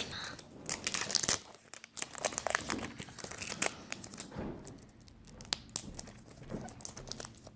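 Plastic toy packaging crinkling and tearing in the hands: irregular crackles and rips as someone struggles to pull a blind-bag toy package open.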